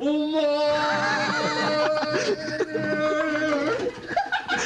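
A man's voice holds one long sung note with a wavering wobble for nearly four seconds. It breaks off about four seconds in into choppy talk.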